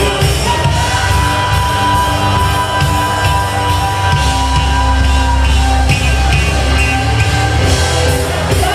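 Loud band music with singing, a long held note in the first half over a strong steady bass, and yells from the crowd.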